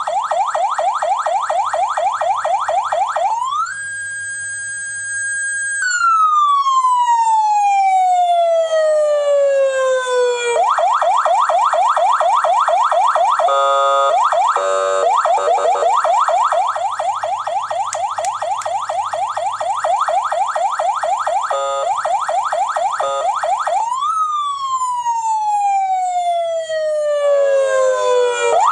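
Police-escort siren horn speaker sounding an electronic siren, working again after water in its voice coil had silenced it. It cycles through tones: fast repeated rising yelps, a short steady high tone, then long falling glides about six seconds in and again about twenty-four seconds in, with a brief chopped stretch around the middle.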